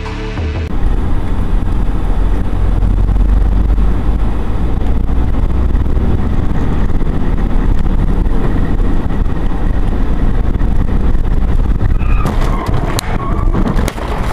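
Road noise from a moving car, a steady low rumble, with a few sharp knocks and some clatter near the end.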